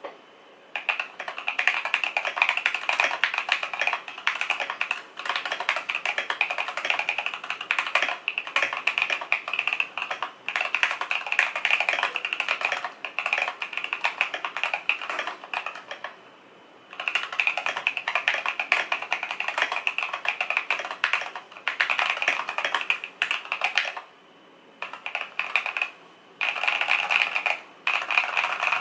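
Fast typing on a Keychron K6 mechanical keyboard with lubed Durock T1 tactile switches, modded stock stabilizers, PE foam, tempest tape and case foam: a dense run of keystroke clacks, broken by short pauses about halfway and again near the end.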